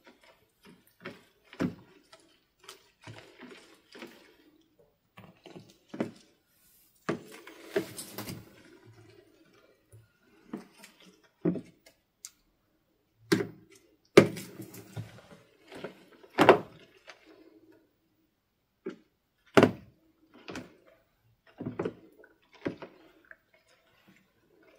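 Foamy slime being stirred and lifted with a paintbrush in a glass dish: irregular sticky, wet pops and squelches, a few of them sharp and loud.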